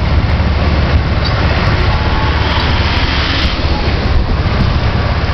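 Steady rumble of a small vehicle rolling along a rough street, with heavy wind buffeting on the microphone.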